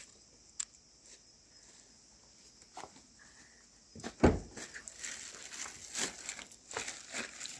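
A few faint clicks, then about four seconds in a single loud thump, followed by a run of irregular knocks and rustling as bags are handled at a car's open tailgate.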